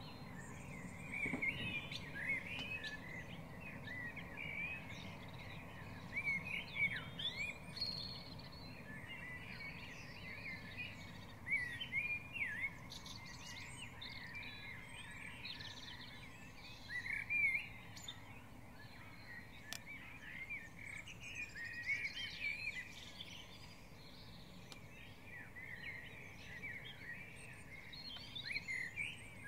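Dawn chorus: many songbirds singing at once, overlapping chirps, trills and warbles over a low steady background rumble.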